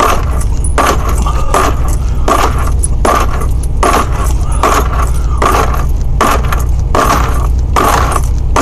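Push-ups on a bunk: a rhythmic metallic rattle, about two strokes a second, over a steady low hum.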